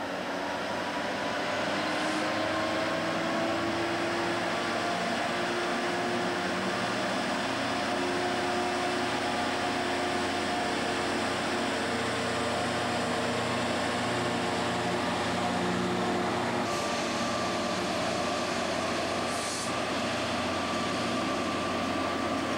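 EWS Class 66 diesel locomotive's two-stroke EMD V12 engine working steadily as it hauls a train of loaded box wagons past, its engine note rising slightly early on and then holding steady.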